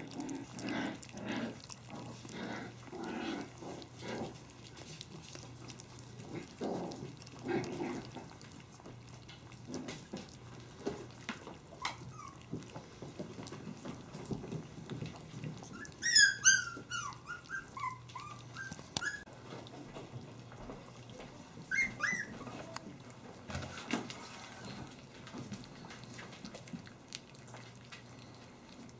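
Havanese puppies crowded at a shared feeding pan: soft, repeated short puppy sounds, then a high-pitched yelp that falls in pitch over about a second roughly halfway through, and a shorter high yelp some six seconds later.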